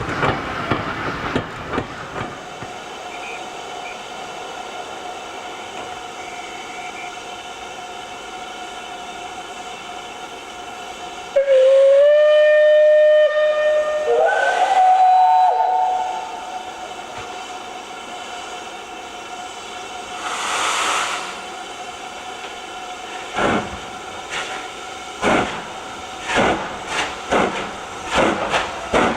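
Steam locomotive whistle blowing loudly for about four seconds, stepping up in pitch partway through, after train wheels clicking over rail joints fade away at the start. Then a burst of steam, and from near the end a run of sharp, quickening exhaust beats as a steam locomotive gets under way.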